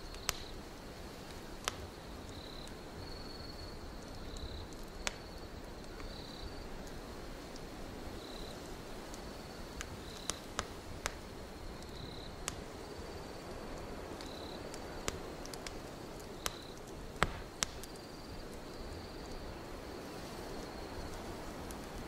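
Wood fire burning in a stove, crackling with scattered sharp pops, the loudest a little past the middle, over a steady hiss. Behind it a cricket chirps in a high, thin trill that starts and stops in short phrases.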